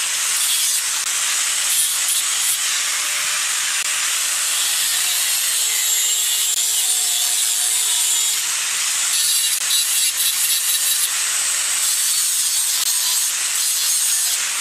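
Handheld angle grinder with a cutoff disc cutting through metal pipe: a steady, high-pitched grinding hiss that holds unbroken throughout.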